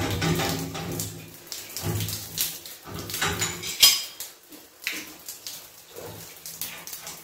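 Metal clicks and clinks of a towel radiator's top valve fitting being unscrewed by hand, with water spattering and dripping as the fitting opens under pressure. The sharpest clink comes about four seconds in.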